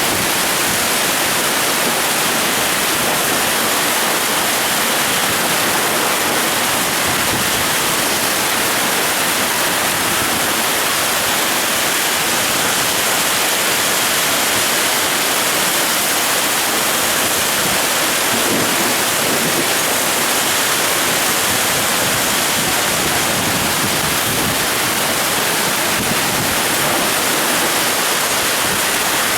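Heavy rain pouring down in a windy summer rainstorm: a steady, dense hiss with no letup.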